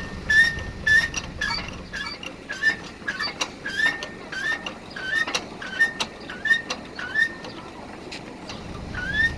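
Floor jack being pumped to lift the van: each stroke of the handle gives a short high metallic squeak with a click, about one and a half a second, in an even rhythm.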